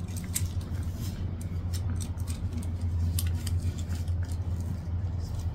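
Rustling and crinkling of paper wrapping being pulled off a new high-heeled shoe, with many short clicks and taps, over a steady low hum.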